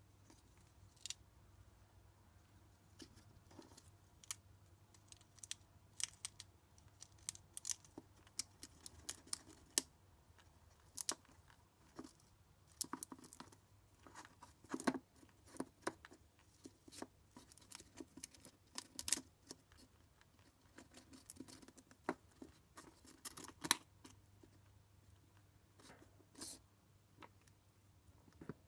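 A chinchilla gnawing and chewing nut pieces: an irregular run of small, crisp crunches and clicks, sparser near the end.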